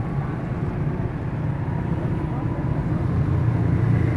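Roadside background noise: a steady low rumble with indistinct voices.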